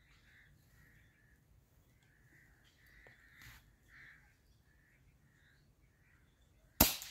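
A QS Air Arms Mk3 air rifle firing once, a single sharp report near the end. Before it, birds call in short, repeated notes.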